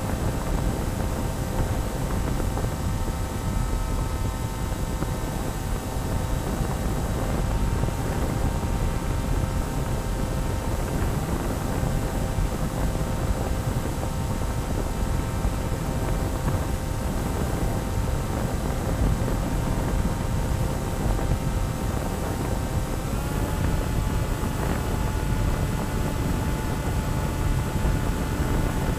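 An RC model airplane's motor and propeller whining steadily, heard from on board, with wind rushing over the microphone. About 23 seconds in, the whine steps up in pitch as the motor speeds up.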